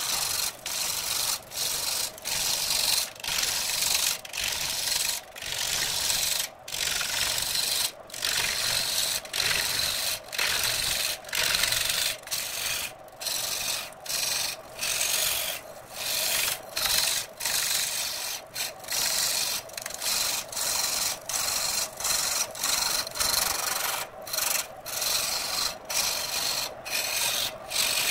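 A gouge cutting into a large redwood blank spinning on a wood lathe: a harsh scraping hiss in repeated passes, each about a second long with brief breaks between them, over a steady hum from the lathe.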